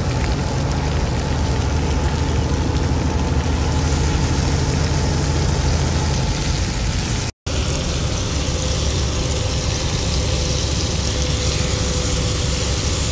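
A truck's engine running with a steady low hum, under the hiss of sliced mushrooms frying in oil in a pan. The sound breaks off briefly about seven seconds in.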